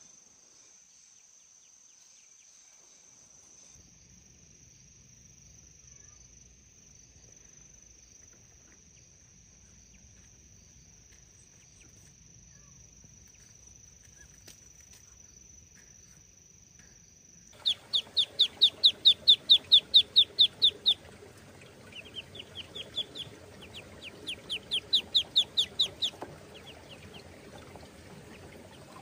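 A faint steady high insect drone for the first half, then ducklings peeping loudly in quick runs of short falling cheeps, several a second, starting a little past halfway.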